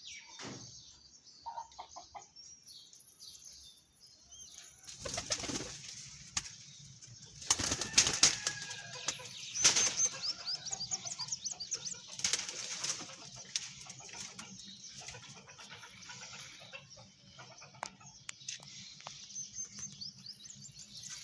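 Domestic pigeons flapping their wings in several loud bursts as they are let out of their loft and take off, with high bird chirping throughout.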